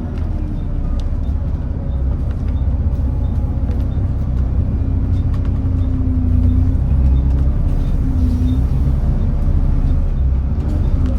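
Volvo B7TL double-decker bus heard from inside the cabin: its Volvo D7C diesel engine and drivetrain run with a steady low drone as the bus travels, with faint clicks and rattles.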